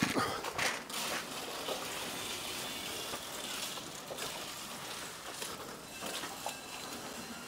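Cattle cake nuts pouring from a feed sack into a trough: a steady rushing rattle, after a few knocks at the start.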